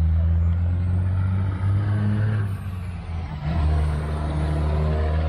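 Semi truck's diesel engine running loudly with a steady low note that dips briefly twice, about one and a half and three and a half seconds in.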